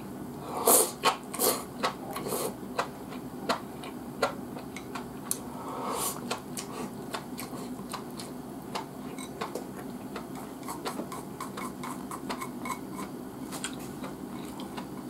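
Eating sounds: chopsticks clicking and scraping against a rice bowl, with mouth and chewing noises as the rice is eaten. A few sharp clicks in the first two or three seconds, then a run of softer ticks.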